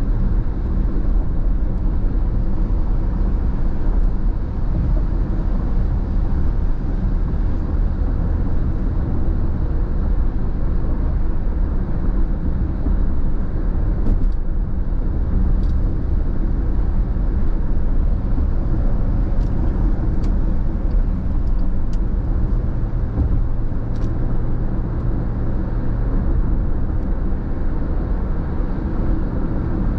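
Steady road noise inside a car cruising on a freeway: a low hum from the engine and from tyres on wet pavement, with a few faint ticks partway through.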